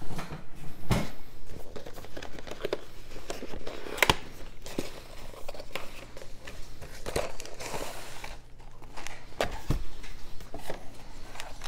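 Cardboard miniatures box being opened and handled: the lid sliding off, cardboard and paper rustling, with a few sharp knocks as box parts are set down on the wooden table.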